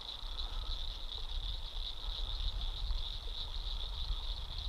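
Steady, high-pitched chorus of frogs calling around the pond, with a low rumble underneath.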